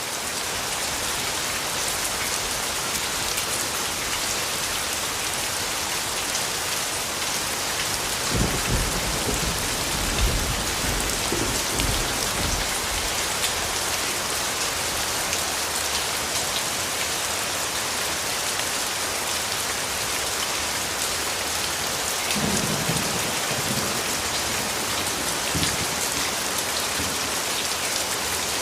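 Steady heavy rain falling, with low rumbles of thunder swelling about eight seconds in and again about twenty-two seconds in.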